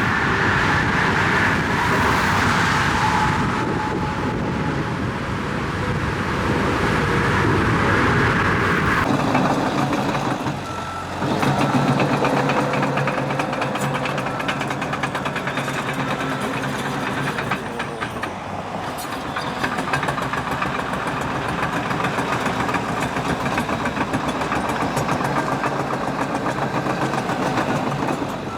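Heavy construction machinery such as excavators, bulldozers and dump trucks running under load, with the sound changing abruptly about nine and eleven seconds in. A truck's reversing alarm beeps in places.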